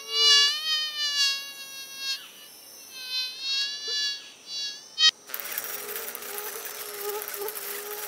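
A fly buzzing in flight, its pitch wavering up and down as it passes, in two spells with a short lull between them. A sharp click follows about five seconds in, then a fainter steady hiss with a low hum.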